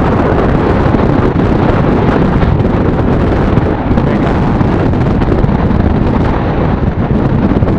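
Steady wind rushing over the microphone of a camera on a moving motorcycle, with the motorcycle's engine and road noise underneath.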